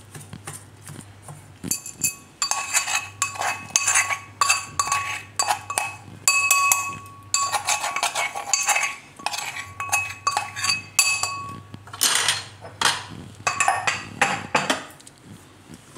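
A metal spoon knocking and scraping against a stainless-steel bowl, with repeated clinks that ring on after each tap, as red chilli and garlic paste is scraped out into the bowl. A few duller scraping strokes come near the end.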